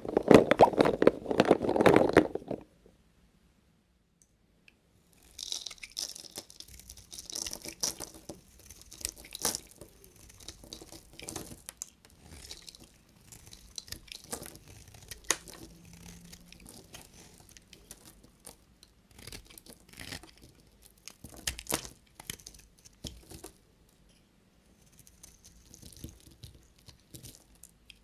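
Knife cutting bars of soap: irregular crisp crunching, scraping and clicking strokes, starting about five seconds in after a short pause. A louder, fuller sound fills the first two seconds.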